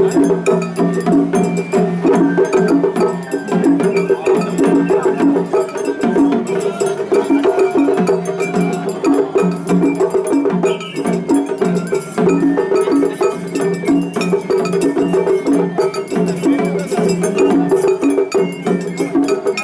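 Japanese festival hayashi ensemble playing, with a metal hand gong struck in a quick, steady, repeating rhythm over drums and bamboo flute.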